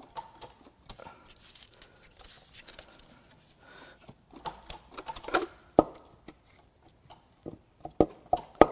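Cylinder head of a Ford 2.7L EcoBoost V6 being worked loose from the block, where it is held fast on its locating dowels: faint clicks and scrapes at first, then sharp knocks starting about six seconds in and coming roughly two a second near the end.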